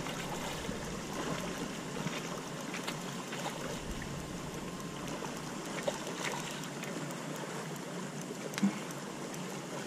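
Light splashing and steady water noise from a hooked bream thrashing at the surface close to the bank as it is played towards the landing net, with a few faint knocks.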